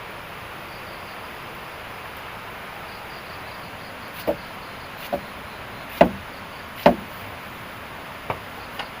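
Six sharp, irregular knocks spread over the second half, the two loudest near the middle, over a steady background hum of insects.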